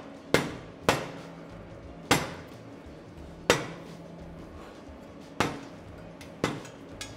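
A hammer tapping a steel hardtail section onto a cut motorcycle frame to seat its slugs in the frame tubes. There are about seven sharp taps at uneven intervals, each ringing briefly.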